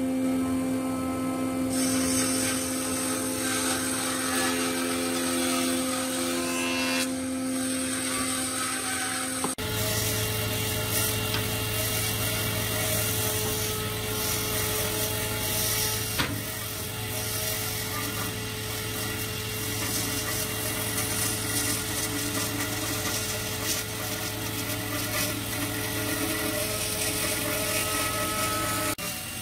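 Woodshop jointer running as a thick board is pushed along its table. About ten seconds in, the sound switches to a band saw running steadily while it cuts through a thick block of wood.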